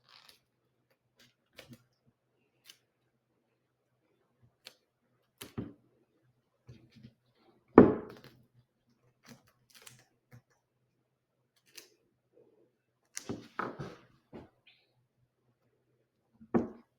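Medical tape being peeled off an IV dressing: scattered soft rustles and clicks, with a louder crackle about eight seconds in and a short cluster of them around thirteen seconds.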